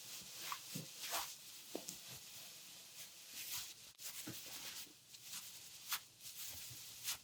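Faint stomach gurgling: short, scattered gurgles and squeaks from a woman's abdomen, mixed with soft rubbing of hands on oiled skin during an abdominal massage.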